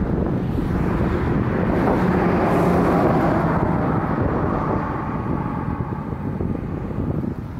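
A motor vehicle passing on the road, its engine and tyre noise swelling about two to three seconds in and then fading, with wind buffeting the microphone.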